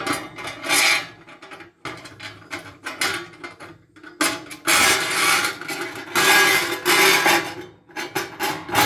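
Sheet-steel cover scraping and rubbing against threaded rods and the edges of a steel battery box as it is worked into place, in a run of loud, irregular scrapes with a slight metallic ring, the longest scrapes in the second half.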